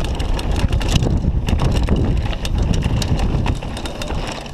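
Downhill mountain bike riding fast over a dirt and loose-gravel trail, heard from a chest-mounted camera: wind buffeting the microphone with a heavy low rumble, and many sharp clicks and rattles from the bike and stones. It eases off a little near the end.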